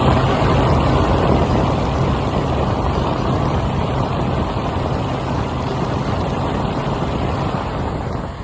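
Steady mechanical running noise with a low hum, holding at an even level and dipping briefly near the end.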